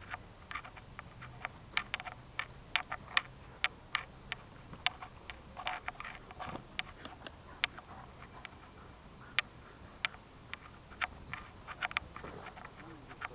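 Irregular sharp clicks and ticks, sometimes several a second and sometimes spaced out, over a faint steady background.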